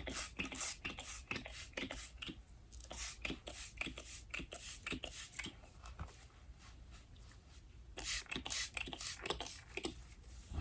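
Irregular rustling and quick clicks of hands working through long braided hair, with a denser rush of hiss about eight seconds in.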